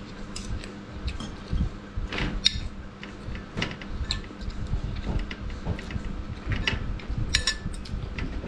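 Metal spoon and fork clicking and scraping on a ceramic plate of rice, with chewing and mouth sounds of eating; a steady low hum runs underneath.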